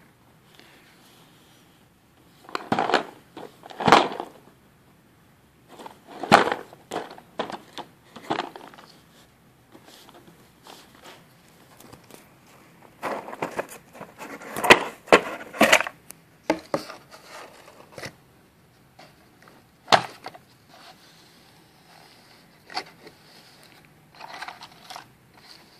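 A cardboard jigsaw puzzle box being unwrapped and opened by hand: irregular crinkles, scrapes and knocks of plastic wrap and cardboard. The loose cardboard pieces shift inside the box near the end.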